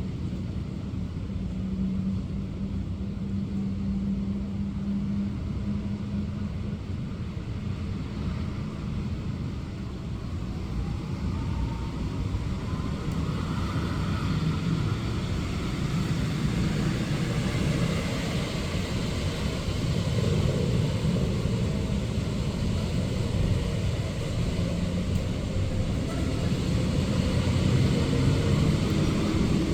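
Steady rain with road traffic: motor vehicles passing on a wet road, a continuous low rumble that grows gradually louder toward the end, with an engine note rising in pitch partway through.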